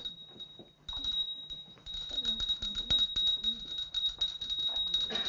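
Small brass handbell shaken rapidly, ringing with quick repeated strokes: the traditional first bell of the school year. It starts about a second in, breaks off briefly, then rings on without pause.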